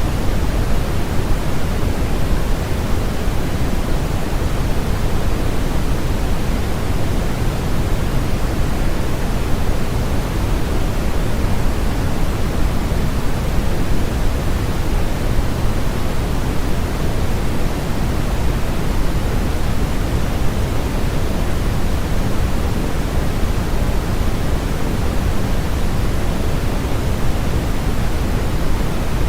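Continuous synthetic sleep-aid noise, a steady, unchanging hiss with more weight in the low end than the high.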